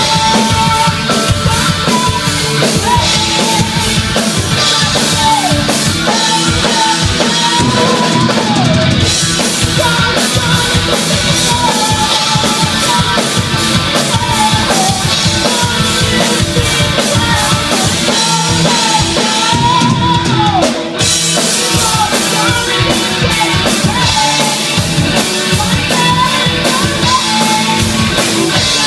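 Live rock band playing: two electric guitars, bass guitar and drum kit, with a female lead vocal. The cymbals drop out briefly twice.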